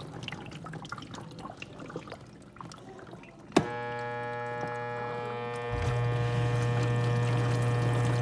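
Water swishing inside a KitchenAid KDTE104ESS1 dishwasher fades away, then a click about three and a half seconds in starts a steady electric buzz, which gets louder a couple of seconds later. The buzz is the fault the owner is recording.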